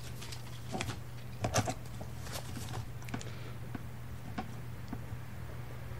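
A few scattered, irregular light taps and clicks over a steady low hum.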